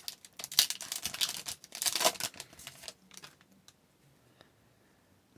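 A hockey card pack's wrapper being crinkled and torn open, with cards rustling, as a series of irregular crackles that stops about three seconds in.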